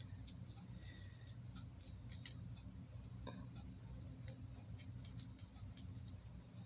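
Quiet room tone with a steady low hum and a few faint, light clicks spaced irregularly.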